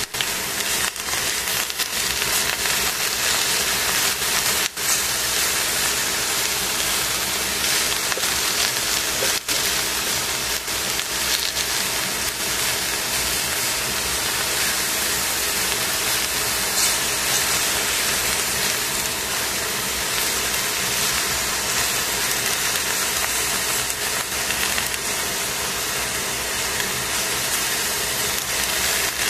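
Cabbage, carrots and mushrooms sizzling steadily in a hot stainless steel pan as they are stir-fried and turned with tongs, over a low steady hum.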